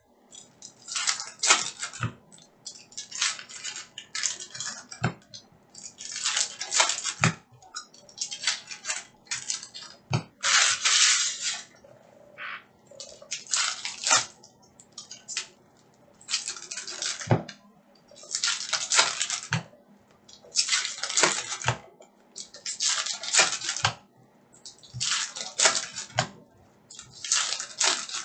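Foil wrappers of Upper Deck hockey card packs crinkling and tearing as the packs are opened by hand, in repeated bursts a second or two apart.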